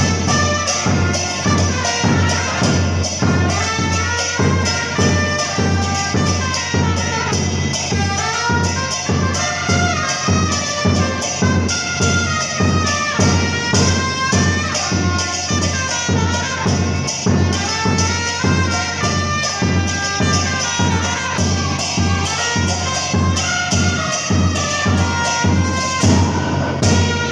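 Two trumpets playing a cumbia melody over a steady, even drumbeat on a bombo murguero (murga bass drum).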